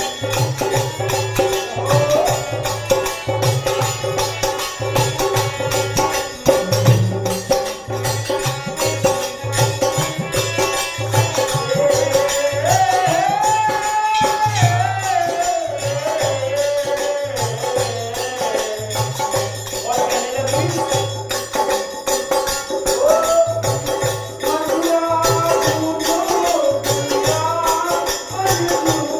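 Devotional bhajan music: steady jingling percussion like a tambourine over a repeating low hand-drum beat, with sustained drone notes and a gliding melody line rising and falling above them.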